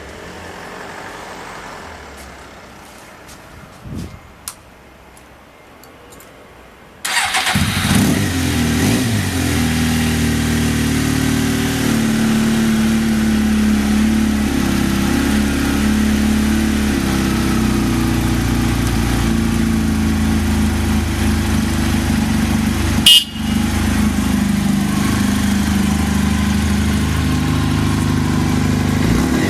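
Suzuki GSX-R750 inline-four motorcycle engine starting on the first press of the electric starter about seven seconds in, then idling steadily and evenly, a sign of a healthy engine. One short sharp crack sounds about two-thirds of the way through.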